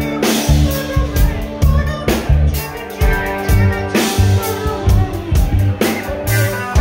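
Live rock band playing through a concert PA, heard from the crowd: drum kit with a steady beat, electric guitars and bass.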